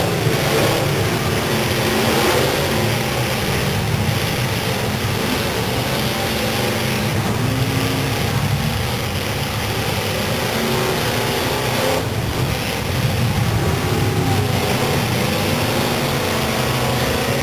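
The engines of several full-size demolition derby cars running and revving together, rising and falling.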